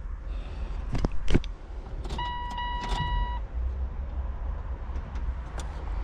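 Two sharp clicks, then an electronic beep tone lasting a little over a second, over a steady low hum.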